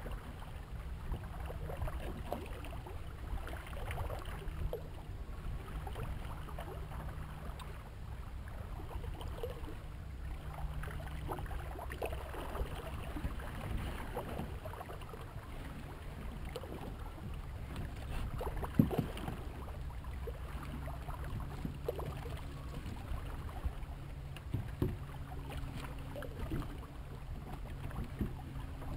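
Wind on the microphone and water washing past the hull of a small sailboat under sail at about 3 knots, with a low hum that comes and goes. There is a single sharp knock about 19 seconds in.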